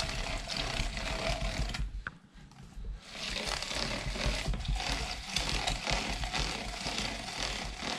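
Hand-cranked plastic meat grinder mincing chicken and onion: a rough, ratcheting grind of the turning auger and plastic parts. It pauses briefly about two seconds in, then resumes.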